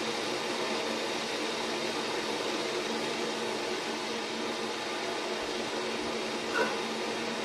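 Steady hiss of an aluminium steamer pot already hot and steaming on the stove, with a faint low hum under it. A brief small sound about six and a half seconds in.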